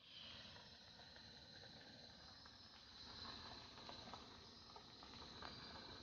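Near silence: faint hiss of room tone with a steady high tone and a few soft clicks.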